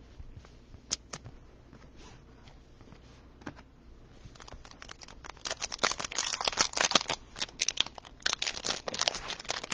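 Trading cards and crinkly plastic being handled by hand. A few light clicks, then about five seconds in a dense stretch of crinkling and rustling.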